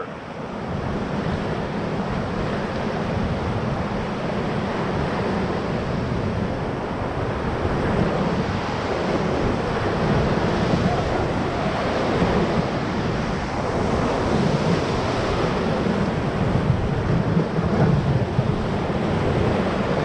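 Whitewater rapids on the Ocoee River rushing around an inflatable paddle raft: a steady, even rush of churning water, heard close up from inside the raft, getting a little louder about halfway through.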